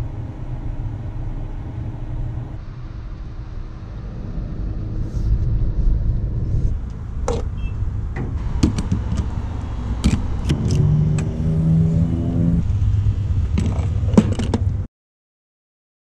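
A car's low running rumble with a few sharp clicks and knocks. In the second half an engine note rises for about two seconds. The sound cuts off abruptly near the end.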